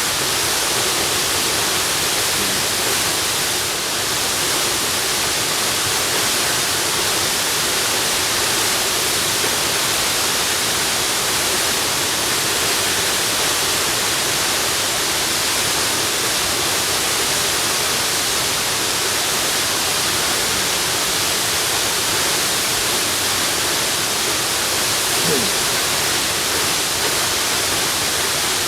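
Waterfall rushing: a steady, even hiss of falling water, strongest in the high range.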